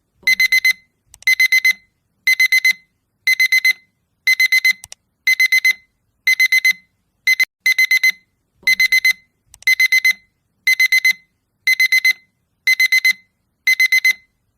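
Electronic alarm clock beeping: a loud, high-pitched beep sounded in quick groups of four, about one group a second, repeating steadily.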